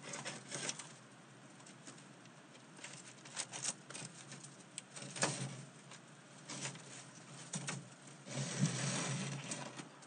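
Dry bunches of herbs rustling and crackling as they are handled and hung from roof rafters, with scattered light clicks and knocks. A longer, denser rustle comes near the end.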